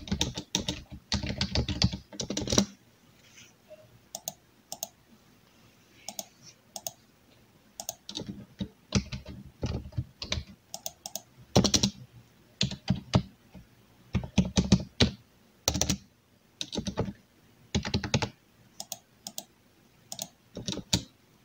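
Typing on a computer keyboard: a fast run of keystrokes, a few seconds of scattered single clicks, then several more quick bursts of typing.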